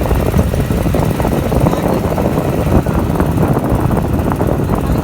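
A boat engine running steadily at cruising speed, heard from on board.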